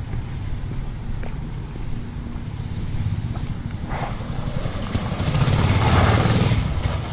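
Small single-cylinder engine of a pocket bike or mini ATV running, its exhaust putting out a fast low pulse, and getting louder for a couple of seconds about five seconds in.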